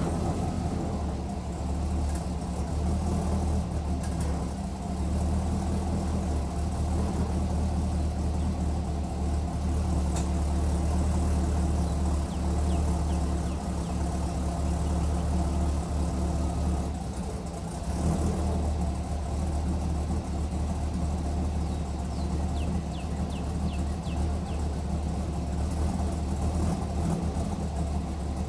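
376-cubic-inch LSX V8 exhaust, through long-tube headers, a 3-inch Y-pipe and a Magnaflow muffler, idling steadily.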